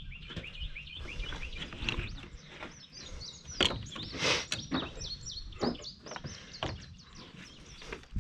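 Songbirds chirping and twittering on and off, with a few short knocks and rustles of handling.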